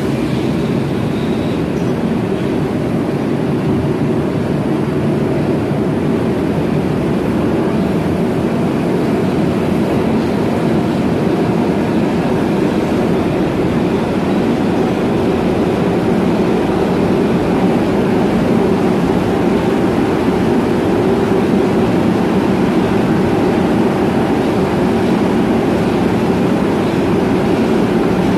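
Osaka Metro 20 series subway train standing at an underground platform, giving off a steady low hum and rumble as it idles, with no change in pitch.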